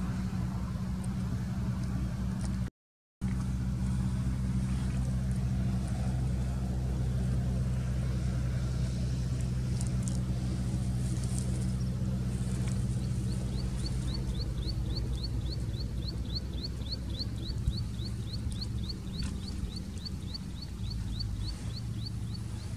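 A vehicle engine idling with a steady low hum, which drops out briefly about three seconds in. From about halfway, a short high chirp also repeats about three times a second.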